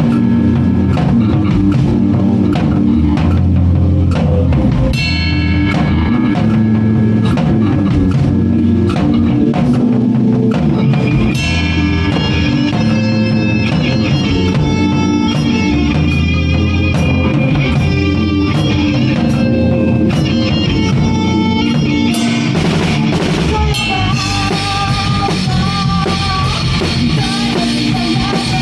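Live rock band playing an instrumental passage, with the drum kit to the fore over bass and guitar. Partway through, the instruments change to a busier, higher line, and in the last few seconds a cymbal crash opens a fuller, cymbal-heavy stretch.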